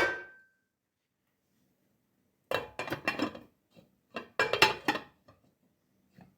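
Kitchen dishes and utensils clattering. A ringing clink opens it, then come two short bursts of knocking and clinking, each about a second long, with a few lighter ticks.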